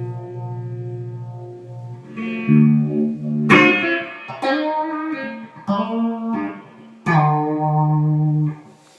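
Electric guitar played through a one-knob phaser pedal set to a slow sweep, into a tube amp with reverb. A held chord gives way to a run of chords and notes struck about a second apart, the last one ringing until it cuts off shortly before the end.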